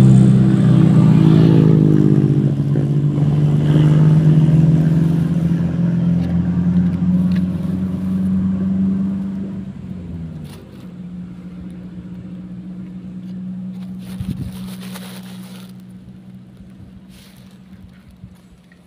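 A vehicle engine running steadily, loud at first and slowly fading. Its pitch dips about ten seconds in, and it carries on more quietly.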